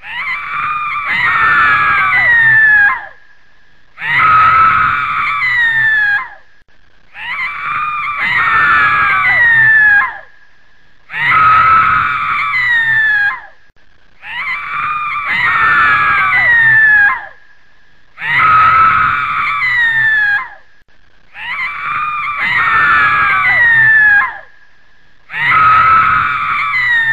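A loud scream, a few seconds long with falling yells, repeated identically about eight times with short gaps between: a looped scream sound effect.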